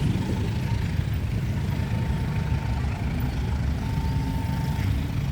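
Diesel locomotive engine running steadily with a deep, even rumble; a faint thin high tone comes and goes twice.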